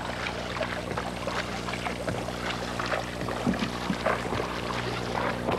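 Canoe paddle working the water: irregular splashes and pouring, dripping sounds as the blade is planted and drawn through. A steady low hum runs underneath.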